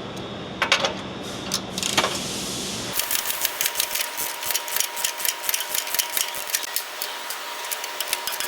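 Ratchet wrench with an 18 mm socket backing nuts off the front valance hangers of a Ford Super Duty: a few clanks at first, then rapid ratchet clicking from about three seconds in.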